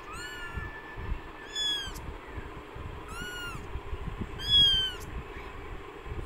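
Persian kittens mewing: four short, high-pitched mews, each rising and falling in pitch, about a second and a half apart, the last one the loudest. A steady low background noise runs underneath.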